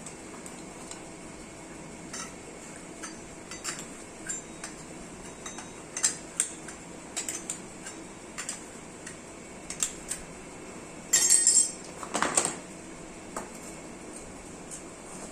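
Scattered light metallic clinks and taps, with a short rattling cluster about eleven seconds in, over a steady background hiss.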